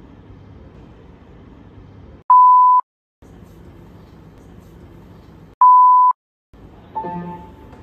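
Two loud, steady one-kilohertz bleeps, each about half a second long and each cut to dead silence: an edited-in bars-and-tone test tone. Near the end a few grand piano notes begin.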